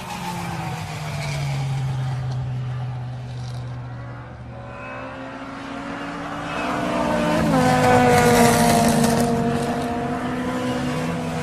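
Sports car engine running hard at speed. It swells in loudness twice, the second time louder, and its pitch drops sharply about seven and a half seconds in, at its loudest point.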